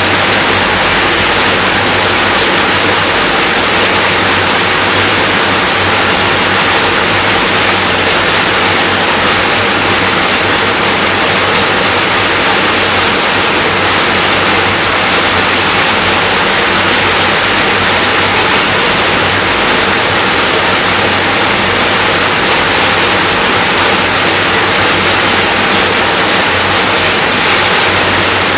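Steady, heavy rainfall: a dense, even hiss of water with no separate drops standing out and no change in level.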